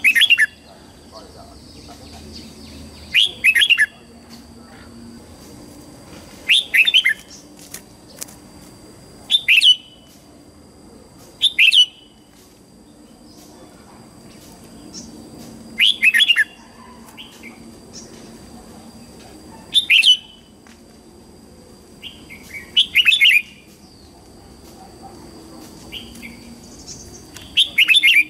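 Red-whiskered bulbul singing short, bright whistled phrases, one every three to four seconds, about nine in all. A faint steady high-pitched tone runs underneath.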